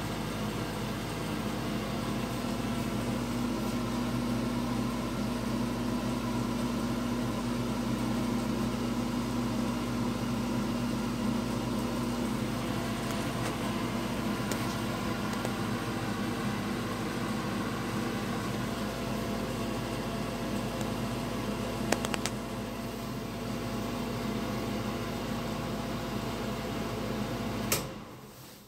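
Vintage Broan ceiling exhaust fan running: a steady motor hum with a rush of air. About a second before the end there is a click, and the fan's sound quickly falls away.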